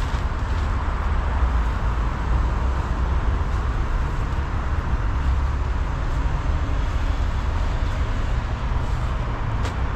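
Steady road traffic noise from a busy junction: a continuous low rumble with tyre hiss. There is a brief click near the end.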